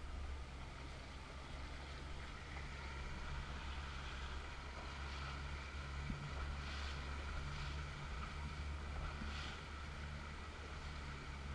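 A boat engine running at a steady pace with water hissing past the hull. A few short splashes of water against the hull come about seven to nine seconds in.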